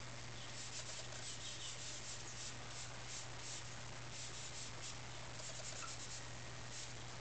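6B charcoal pencil scratching on drawing paper in quick short strokes, laying down fur hairs, in bursts of several strokes with brief pauses between.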